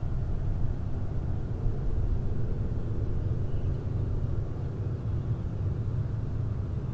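Steady low jet rumble of a distant Boeing 737-800 with CFM56 engines climbing away after take-off.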